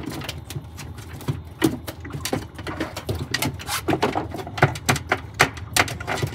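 Rapid, irregular clicking and knocking that gets busier and louder from about a second and a half in, over a low steady hum.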